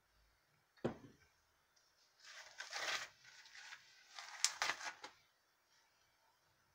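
A single knock about a second in, then two spells of rustling, scraping handling noise, each a second or so long.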